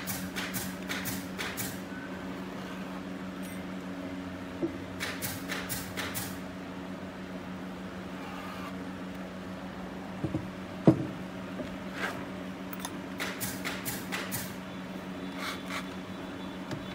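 Steady workshop machine hum under scattered clicks and knocks as thick hardwood boards are handled and set against each other, with one louder knock about eleven seconds in.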